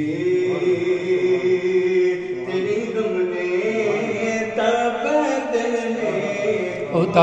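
A man singing a devotional Urdu song, drawing out long held notes.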